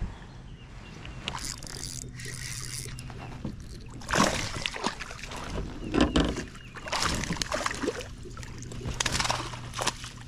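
A hooked fish thrashing and splashing at the surface right beside a kayak, in several separate splashes, the loudest about four and six seconds in.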